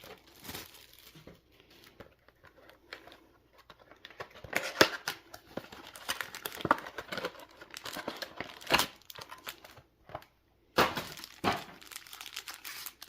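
Foil trading-card booster pack being crinkled and torn open by hand: a run of irregular crackles, sparse at first and thicker from about four seconds in, with a short pause near the end.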